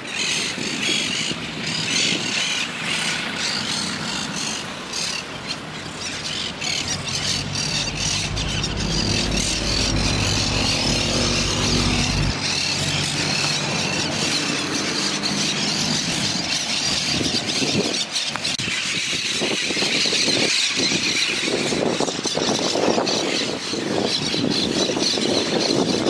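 Outdoor ambience of many birds calling in the trees, with road traffic behind; a vehicle's low rumble swells through the middle and stops abruptly.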